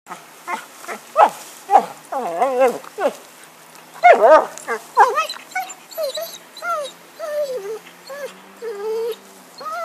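Cocker spaniel whining and whimpering in a rapid string of short, high calls that rise and fall in pitch, while working at a log.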